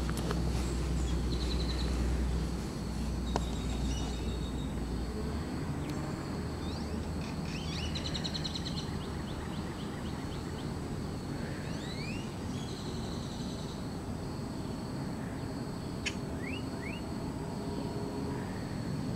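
Outdoor ambience with small birds chirping now and then: a quick run of notes and several short rising whistles. A low rumble underneath fades out about five seconds in.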